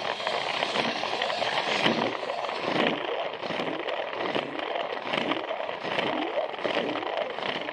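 A Plarail toy train running along plastic track: a steady scratchy clatter of its small motor, gears and wheels, with a low bump repeating about every two-thirds of a second.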